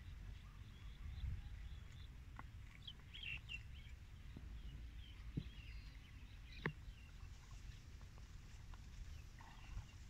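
Faint bird chirps over a low steady rumble, with a few sharp clicks.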